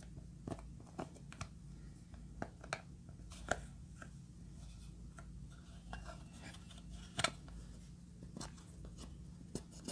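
Small plastic stick scraping pressed eyeshadow out of the pans of a plastic makeup palette, with irregular sharp clicks and taps as it knocks the palette, over a steady low hum.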